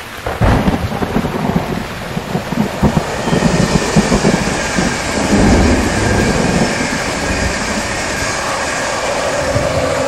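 Passenger train passing close by at speed: a sudden low rumble as it arrives, then an uneven rumble and clatter of wheels on rails, with a rushing noise that grows about three seconds in as the carriages go by.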